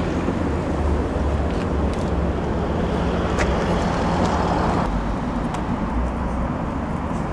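Steady road traffic noise with a low rumble of cars, and a few faint clicks around the middle.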